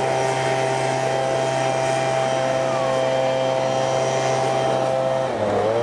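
Lawnmower engine running with a loud, steady drone; its pitch dips and wavers near the end.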